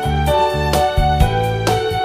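Instrumental background music: held melodic notes over a low bass line, changing notes every half second or so.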